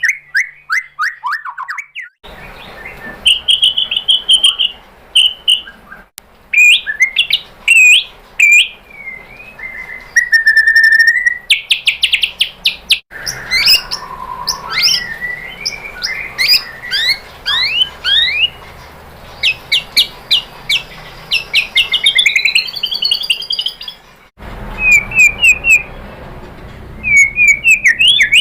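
White-rumped shama singing a varied song of clear whistled phrases, fast trills and rapid rising and falling sweeps, phrase after phrase with short gaps. The background hiss shifts abruptly a few times where separate recordings are joined.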